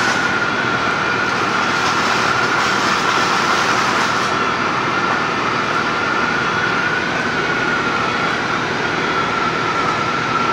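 Sodium metal burning in a stream of chlorine gas, making a steady, loud rushing noise with one high whistle-like tone held through it.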